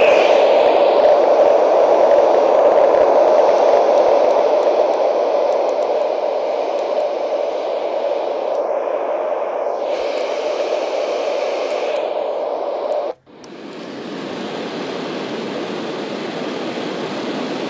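Yogasleep Hushh portable white noise machine playing a steady hiss. It eases down in level over the first several seconds, cuts out for a moment about 13 seconds in, then comes back lower and swells in again.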